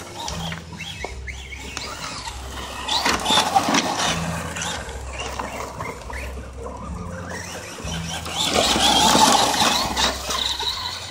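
Traxxas Slash 4x4 LCG radio-controlled truck driving on dirt and gravel: its electric motor whines and its tyres scrub and crunch over the loose surface. It is loudest about three seconds in and again near nine seconds in.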